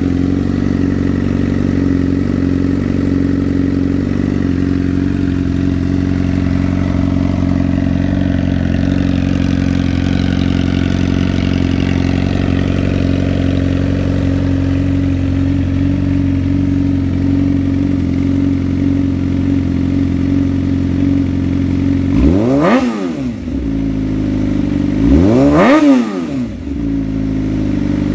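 2015 Suzuki GSX-R600's 599cc inline-four running through an M4 aftermarket exhaust, idling steadily. Near the end the throttle is blipped twice, and each rev rises sharply and falls back to idle.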